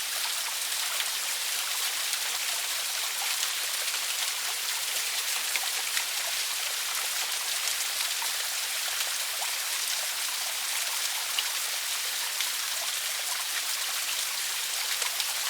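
Water of a small waterfall and river falling and splashing steadily: an even hiss with scattered small drips and splashes.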